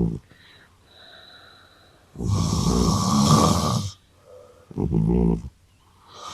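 A man and a pet cat snoring in turn: a long snore of nearly two seconds, then a shorter one, with the next one starting near the end.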